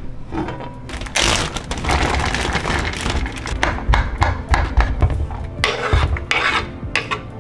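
A wooden spoon stirring and scraping ground turkey around a nonstick frying pan, and near the end a knife scraping diced peppers off a wooden cutting board into the pan.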